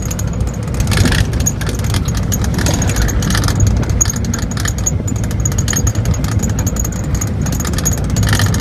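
Vehicle driving over a rough unpaved gravel road, heard from inside: a steady low road and engine rumble with constant rattling and clattering from the bumps.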